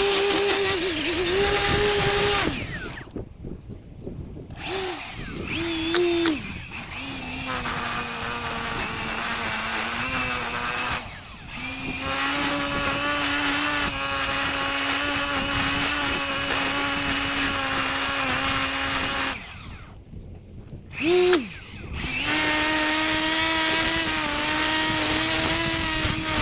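Whipper snipper (petrol string trimmer) running at high revs with a steady whine. Its throttle is let off twice, at about 3 s and again at about 20 s, and once briefly near 11 s, the pitch settling a little differently each time it comes back on.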